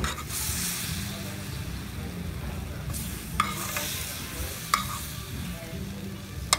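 Butter and brown-sugar sauce sizzling in a hot sauté pan as bananas are spooned out. A metal spoon clicks sharply against the pan or dish three times: twice in the middle and once near the end.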